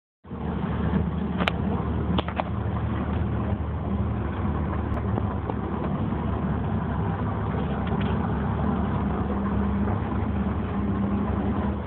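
Twin Yamaha 225 outboard motors running at a steady speed while the rigid-hull inflatable boat is underway, a constant drone with no change in pitch. A few sharp clicks sound about two seconds in.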